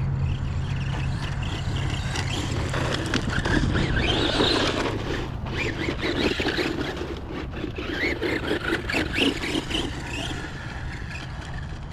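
Electric 1/10 RC buggy, a Tamiya Blitzer Beetle, driving over dirt and gravel: its motor whine rises and falls as the throttle is worked, with tyres scrabbling and crunching on the loose ground. The running grows louder after a few seconds and eases off near the end.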